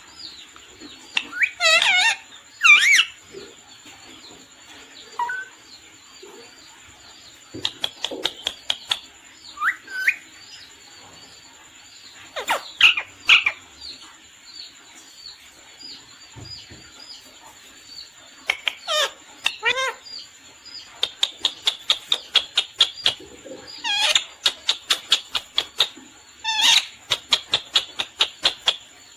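Pet parrot calling: loud squawks and whistles that glide up and down in pitch, scattered through the first half. In the second half come fast runs of short clicking notes, about three to four a second.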